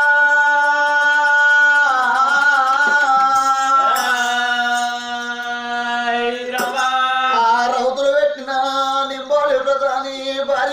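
Oggu Katha folk singing: a voice holding long, drawn-out chanted notes that step to new pitches and then break into shorter wavering phrases, with a couple of sharp hand-drum strikes.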